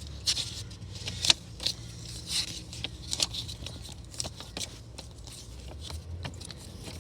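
Paper rustling as logbook pages are handled and turned: a string of short, irregular rustles and ticks over a steady low hum.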